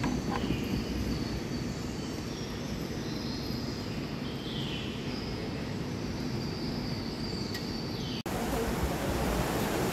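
Steady background ambience, a low rumbling hum with faint high chirps and short gliding calls over it. About eight seconds in it cuts off abruptly to a louder, hissier ambience.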